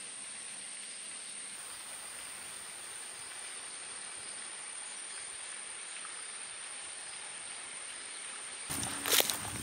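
Steady, even outdoor hiss with a thin high tone held through it. Near the end it gives way abruptly to louder, irregular footsteps in boots on leaf-littered forest ground.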